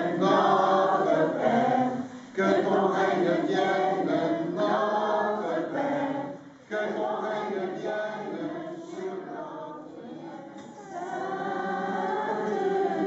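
Group of voices, children's and adults', singing together in church. The singing breaks briefly between phrases about two seconds and six and a half seconds in, and grows softer for a few seconds before picking up near the end.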